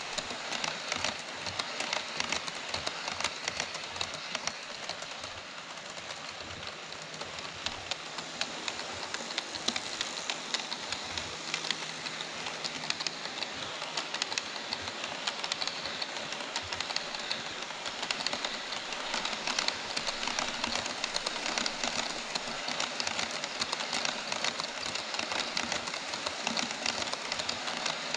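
HO-scale model trains rolling past on KATO Unitrack over a plastic viaduct: a steady rolling rattle with a dense stream of small clicks from the wheels and rail joints.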